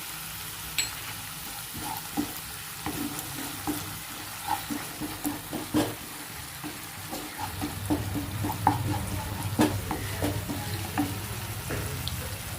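Onions and sauce sizzling in hot oil in a pan on high flame while a spoon stirs and scrapes, with scattered clicks of the utensil against the pan. A low hum comes in about halfway through.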